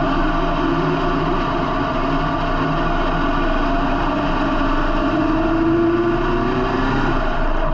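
Dirt-track super saloon race car's engine running at low speed, heard from inside the cockpit; its pitch rises slowly over a few seconds, then drops near the end.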